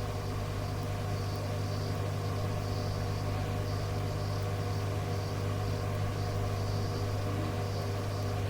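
Steady electrical hum and hiss from a radio receiver between transmissions, with a few faint steady tones and a faint high warble pulsing about every half second.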